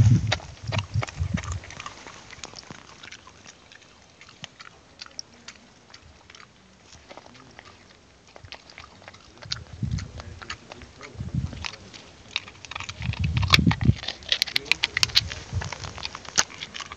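A dog cracking and chewing a walnut: the shell crunches in many sharp clicks, busiest near the end, mixed with dull low thumps.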